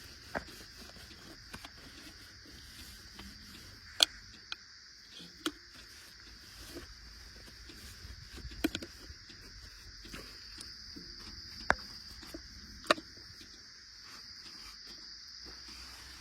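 Steady high-pitched insect chorus, with half a dozen sharp clicks or knocks scattered through it; the loudest comes about four seconds in. No engine is heard.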